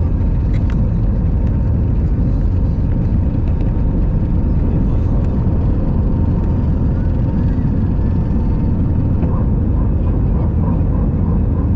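Cabin noise of an Airbus A320-family airliner on its takeoff roll and lift-off: engines at takeoff power give a loud, steady low rumble with a faint steady whine over it.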